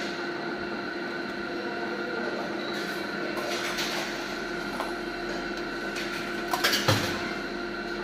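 Coin-operated bar slot machine spinning its reels, a steady drone of electronic tones, with a quick clatter of clinks about seven seconds in as a one-euro coin is fed in.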